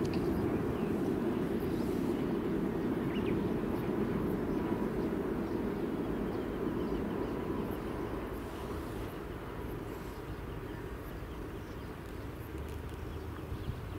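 Steady low outdoor rumble, easing off slightly toward the end.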